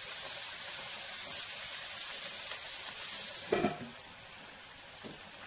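Green beans sizzling steadily as they fry in oil in a pan. About three and a half seconds in, a short clatter as the lid is set on the pan, after which the sizzle is quieter.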